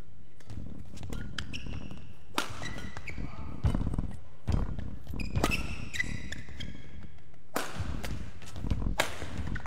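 A badminton rally: a string of sharp racket strokes on the shuttlecock, mixed with court shoes squeaking on the mat and heavy footfalls and lunges.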